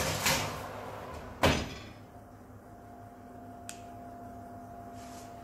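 Kitchen oven being loaded: a sharp clatter as the door is opened and the baking tray goes in, then the oven door shut with a bang about a second and a half in, ringing briefly. A small click near the end and a faint steady hum underneath.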